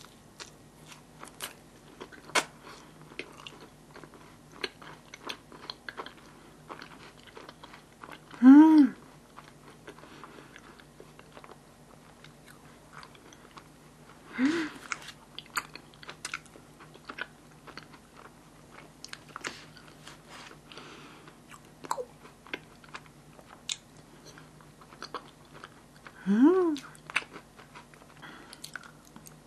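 Close-miked eating of yakgwa honey cookie topped with vanilla ice cream: chewing and biting with many small mouth clicks. Three short hummed 'mm' sounds of enjoyment come through, the first about eight seconds in, one near the middle and one near the end.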